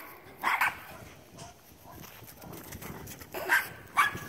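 Portuguese Podengo Pequeno puppy barking in short, sharp barks: one about half a second in, then two more a little after three and a half seconds, with a quieter gap between.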